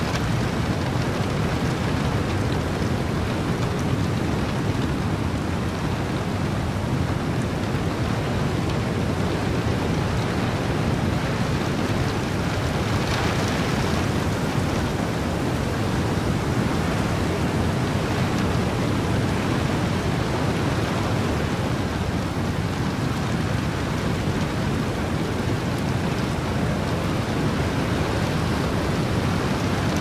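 Steady mix of heavy rain, wind and ocean surf: a dense, even rushing noise, heaviest in the low end, with a brief brighter swell about thirteen seconds in.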